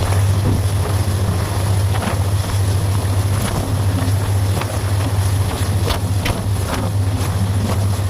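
Local passenger train running along the track: a steady low drone with scattered sharp clicks and knocks.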